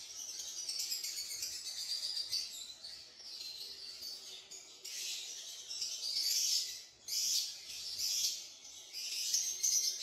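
Many caged lovebirds chattering together in high, shrill chirps that swell and fade every second or two.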